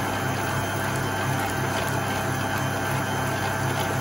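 Smeg planetary stand mixer running, its whisk beating cream cheese and heavy cream in a steel bowl: a steady motor hum with a regular pulsing beat.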